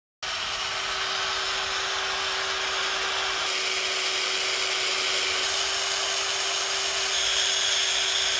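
Power drill spinning a wire brush wheel against a rusty bolt clamped in a vise, scrubbing off the rust: a steady motor whine under a loud scratching hiss. The sound cuts in just after the start and gets a little louder about halfway through.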